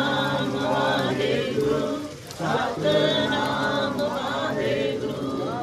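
A group of voices chanting a Sikh devotional hymn together, in sung phrases with a short break about two seconds in.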